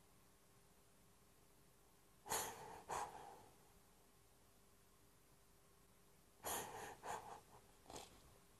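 A woman sobbing: two shaky gasping breaths about two seconds in, then three or four more in a cluster near the end.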